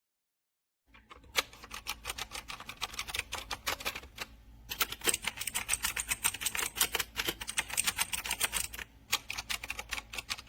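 Fast typing on a MageGee mechanical keyboard with clicky blue switches: a rapid run of sharp key clicks that starts about a second in, with brief pauses a little after four seconds and near nine seconds.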